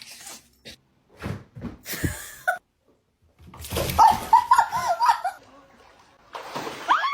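A dog whining and yelping, with a quick run of short high yelps about four seconds in.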